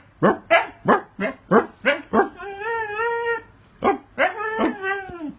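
Siberian husky vocalizing: a quick run of about seven short barks, roughly three a second, then two longer wavering howl-like calls, the first about halfway through and the second near the end.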